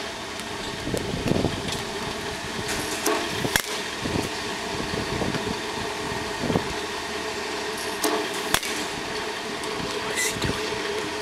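Steady mechanical hum at a batting cage, with two sharp knocks about five seconds apart from baseballs striking during batting practice.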